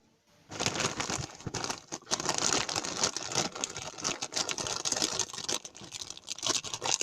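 Dense crinkling and rustling with many small irregular clicks, starting about half a second in.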